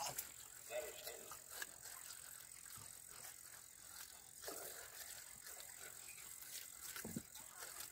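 Faint rustling and scattered light clicks of a bag and food being handled while monkeys are hand-fed, over a steady faint high hiss.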